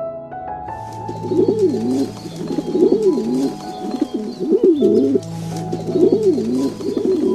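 Pigeon cooing over and over in wavering, rolling phrases, over background music with held notes.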